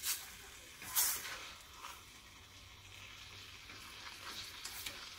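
A metal spoon stirring sugared strawberries in a small stainless steel saucepan, with two sharper scrapes against the pan, one right at the start and one about a second in. Under it, a faint sizzle from the fruit and sugar cooking down toward caramelising.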